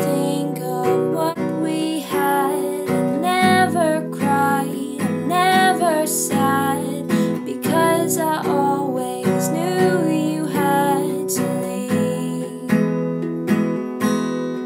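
Yamaha steel-string acoustic guitar strummed in a steady rhythm, with a woman's voice singing a wavering melody over the chords.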